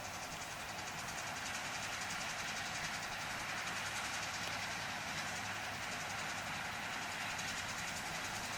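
Massey Ferguson 510 combine running steadily while harvesting soybeans: a constant mechanical rush with a fast, even rattle in the high range and a low hum underneath.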